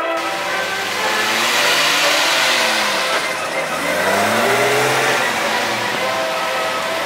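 A vehicle engine revving up and back down twice, its pitch rising and falling, over a steady rushing noise.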